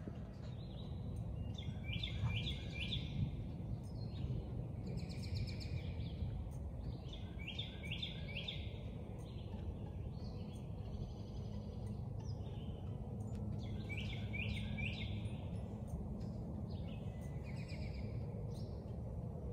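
Songbirds singing in woodland. One bird repeats a short phrase of three or four quick notes about every six seconds, and other calls come in between, over a steady low rumble of background noise.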